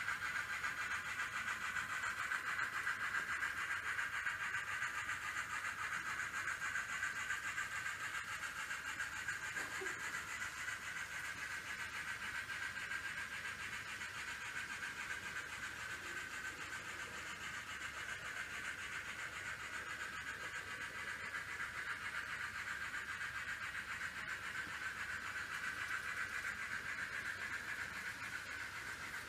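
N scale model trains running on the track: a steady high whine from the small locomotive motors with wheel noise on the rails, louder near the start and end and softer in the middle as the trains come nearer and go further off.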